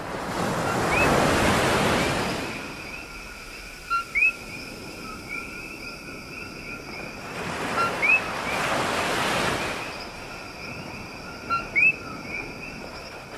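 Surf washing in twice over a steady, faint high chorus, with a common coquí frog giving its two-note "co-qui" call three times, a low note followed by a higher, rising one.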